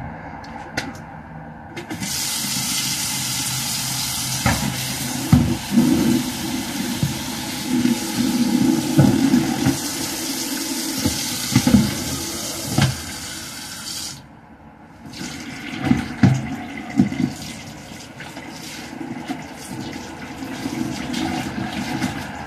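Water running steadily, starting about two seconds in and cutting off abruptly some twelve seconds later, with low knocks and bumps close to the microphone throughout.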